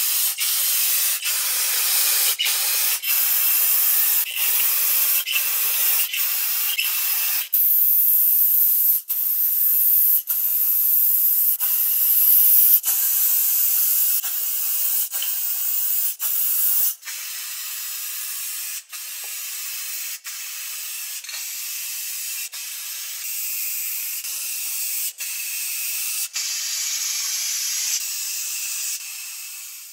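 Spray paint hissing steadily as it is sprayed onto the hanging snips parts, broken by brief gaps about once a second; the hiss gets somewhat quieter about halfway through.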